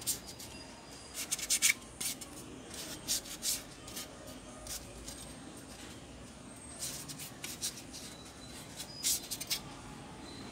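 Tissue rubbing and wiping at the plastic keyboard frame of an HP EliteBook 840 laptop, in several short scratchy strokes, cleaning off a little oil residue.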